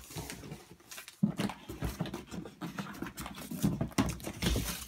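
Cardboard shipping-box flaps being pushed open and handled by hand: irregular rustling, scraping and tapping of cardboard, busier from about a second in.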